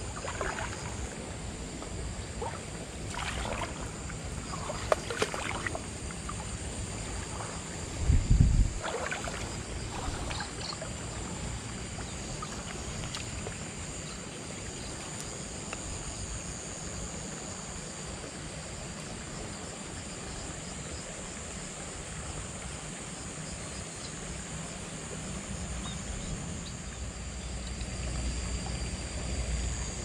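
Riverbank ambience: a steady high insect trill runs throughout over a soft wash of background noise. A brief low rumble about eight seconds in, and a few faint clicks and knocks.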